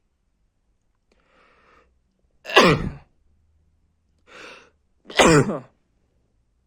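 A man sneezing twice, about two and a half seconds apart; each loud sneeze comes after a short sharp breath in, with the voice falling steeply in pitch.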